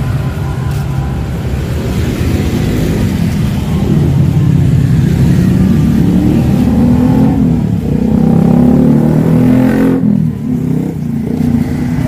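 Motor vehicle engine running and revving in road traffic, its pitch rising and falling several times; the hiss above it drops away about ten seconds in.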